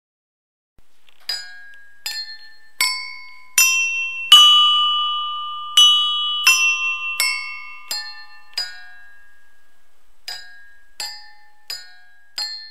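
A pencil strikes stainless-steel tumblers filled with water to different levels, played in succession as a jal tarang. About fifteen clear ringing metallic notes of different pitches sound, some ringing on for a second or more.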